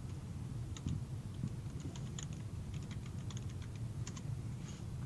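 Typing on a computer keyboard: irregular runs of short key clicks as a two-word phrase is typed, over a faint steady low hum.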